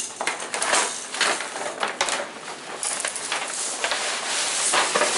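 Paper gift bags and tissue paper rustling and crinkling as they are handled, a busy run of irregular crackles with a slightly quieter patch in the middle.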